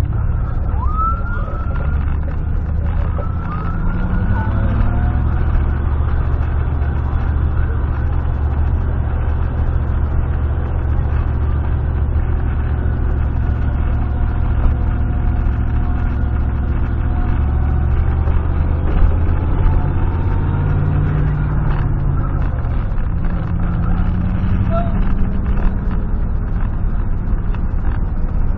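Steady low drone of a high-mileage 1996 GMC pickup's V8 and road noise as heard from inside the cab, while the truck drives along. The engine note climbs a few seconds in and again past the middle as the truck picks up speed.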